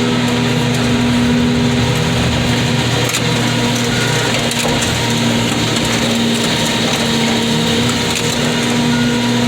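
Portable car crusher running steadily under load, its engine and hydraulic pump holding a constant drone, with occasional cracks and crunches as the car bodies give.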